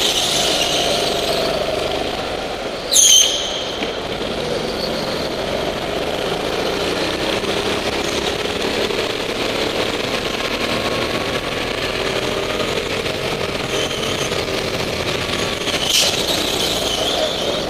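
Go-kart engine running hard from the driver's seat, its pitch rising and falling with the throttle through the corners. Two brief, loud, sharp sounds cut across it, about three seconds in and near the end.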